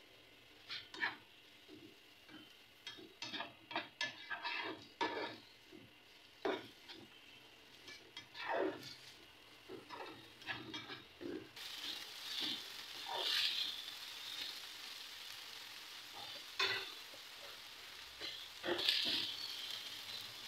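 A spatula scrapes and knocks against a non-stick frying pan in short strokes as chopped onion, tomato, green chilli and ginger are stirred in oil. About halfway through, a steady sizzle of the vegetables frying comes up under the stirring.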